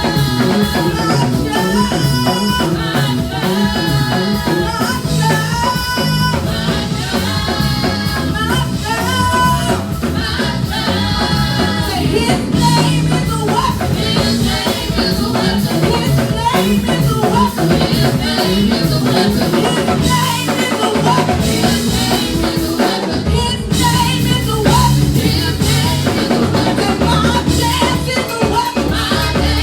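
Worship music with a drum kit and singing voices, playing steadily throughout.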